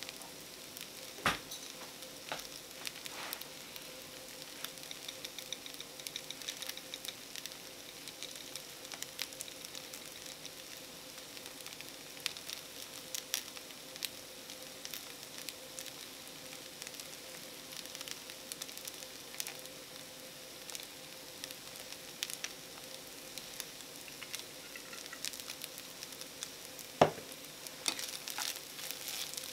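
Egg fried rice sizzling in a small frying pan on a portable butane stove, a steady crackle of frying with small pops. There is a sharp knock about a second in and a louder one near the end, when chopsticks start stirring the rice.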